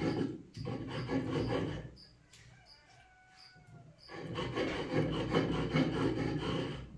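Tomato and dried-chile salsa being ground by hand on a grinding stone: a run of rhythmic rasping stone-on-stone strokes that stops for about two seconds in the middle, then starts again.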